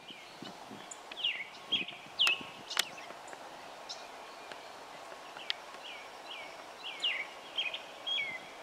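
Outdoor birds chirping: repeated short notes that slide down in pitch, coming in quick runs, with two sharp clicks a little over two seconds in.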